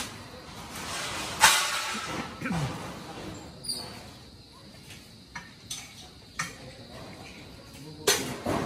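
Scattered sharp knocks on a building site, one loud about a second and a half in and a few lighter ones in the second half, over faint background voices.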